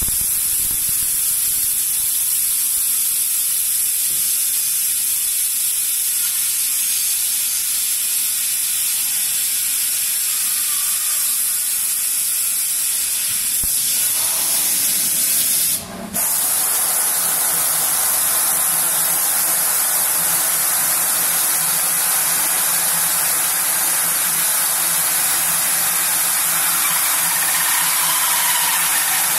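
Artikon DG604 CNC pantograph running with a steady hiss. The sound cuts off briefly about sixteen seconds in, then resumes with a low steady hum added.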